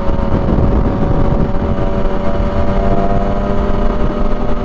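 Motorcycle engine running at a steady cruising speed, with wind rumbling on the microphone.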